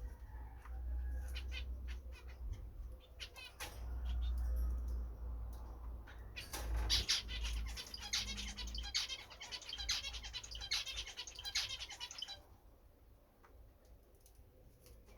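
European goldfinches chirping, breaking into a burst of fast, high twittering song about halfway through that stops suddenly a few seconds before the end.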